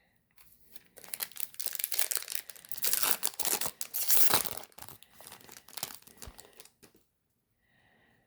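Plastic wrapper of a Topps baseball card pack being torn open and crinkled: a dense crackling from about a second in, loudest in the middle, dying away by about seven seconds.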